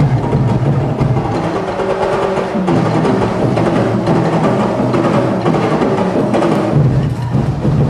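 Massed drums and percussion of a Dinagyang street-dance tribe's drum corps playing a dense, driving beat. The deep bass drums drop back about a second in and come back in strongly near the end.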